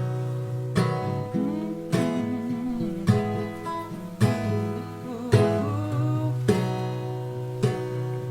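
Acoustic guitar strumming chords, a strum about every second, each chord left to ring into the next.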